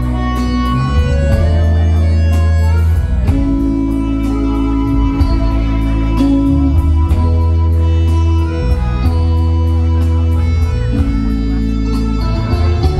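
Live band playing an instrumental interlude of a ballad: electric guitar and keyboard over a strong bass line with a steady beat, no vocals.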